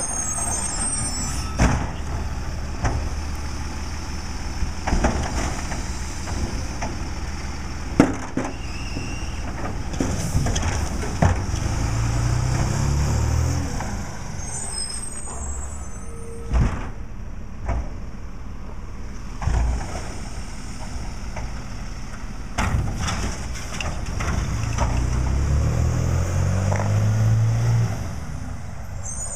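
Labrie automated side-loader garbage truck on a Freightliner chassis: the diesel engine runs steadily and speeds up twice, about twelve seconds in and again near the end, as the hydraulic arm works. Carts knock and bang against the truck several times as they are lifted, emptied and set down, and the air brakes hiss briefly about halfway through.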